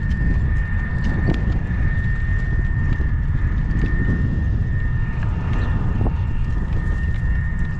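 Horse's hooves at a walk, heard as scattered soft clops over a heavy low rumble of wind on the microphone, with a steady high-pitched whine throughout.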